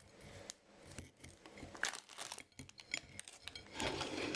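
Plastic food packaging crinkling and rustling as it is handled, with irregular crackles that grow louder near the end.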